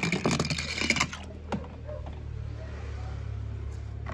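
A fast, dense clatter of clicks for about the first second, then a low steady rumble that swells slightly, with a brief click burst again near the end.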